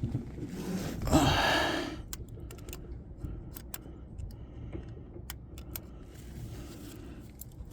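Scattered small metallic clicks and taps of hand tools adjusting the contact breaker points gap in a truck's distributor. About a second in there is a short rush of noise lasting just under a second, the loudest sound here.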